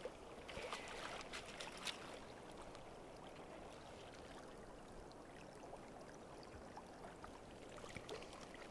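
A few brief splashes from a trout in a landing net in the first couple of seconds, then the faint, steady rush of river current around the net.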